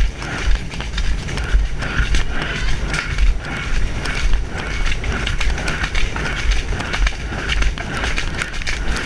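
A horse cantering on a wet, muddy track, its hoofbeats a rhythmic thudding with rattling and creaking from the tack, all under wind rumble on a helmet-mounted camera.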